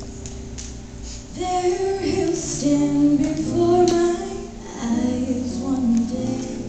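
A woman singing a slow ballad into a microphone, accompanied softly by a small jazz combo of piano, guitar and upright bass. A held chord comes first; her voice enters about a second and a half in and sings one phrase, which ends shortly before the close.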